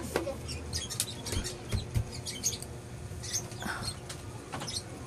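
Rummaging through a plastic storage bin of toys and bags: scattered light clicks, taps and rustles, with a few soft thumps about a second and a half in.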